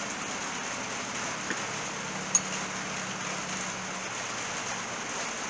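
Steady rain on a roof, a continuous hiss, with one sharp click a little over two seconds in.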